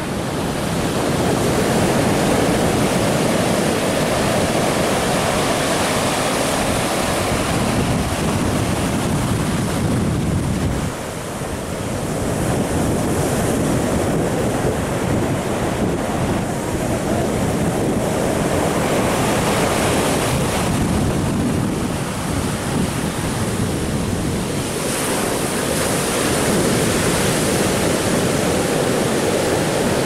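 Ocean surf breaking and washing up a sandy beach in a continuous surging rush, with wind buffeting the microphone.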